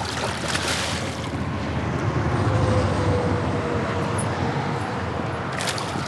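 Road noise from interstate traffic: a steady rumble and tyre hiss that swells about halfway through as a vehicle passes, with a faint falling tone. Brief sharp noises come about a second in and near the end.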